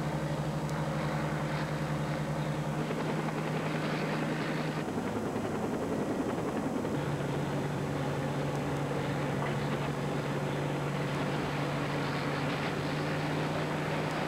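Light aircraft's propeller engine droning steadily at low speed, with a steady hum that drops out for about two seconds midway and comes back.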